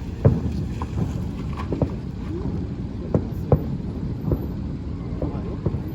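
Distant fireworks going off: about seven sharp bangs and pops at irregular intervals over a steady low rumble.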